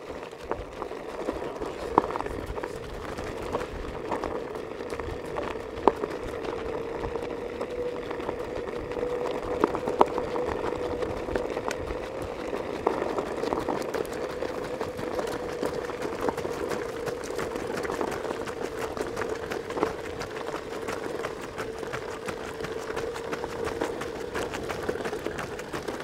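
A motor running steadily at a near-constant pitch, with scattered sharp clicks.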